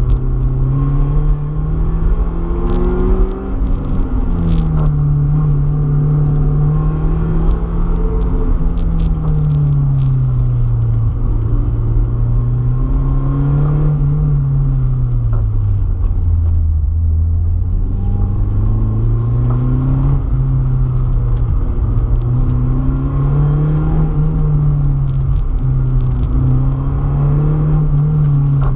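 BMW E36 318ti four-cylinder engine under hard driving, its revs climbing and falling again and again. There is a short break and a drop in pitch about four seconds in, and the revs are lowest around sixteen seconds in.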